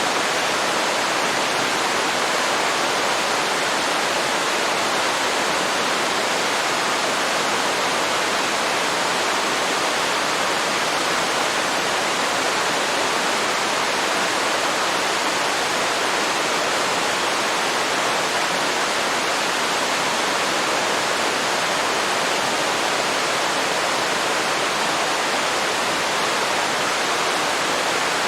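Waterfall pouring into a river: a steady, unbroken rush of falling water.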